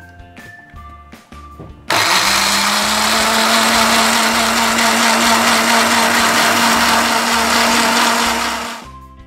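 Small electric blender grinding shallots, garlic and chillies with a little water into a paste. The motor starts suddenly about two seconds in, runs loud at a steady pitch, then winds down near the end.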